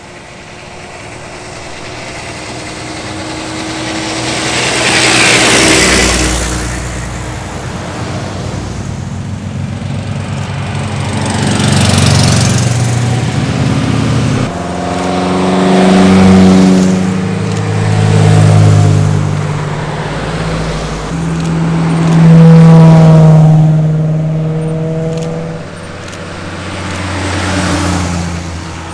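Porsche and Mercedes-Benz cars driving past one after another, about six in all. Each engine rises in level as the car approaches and fades as it goes by.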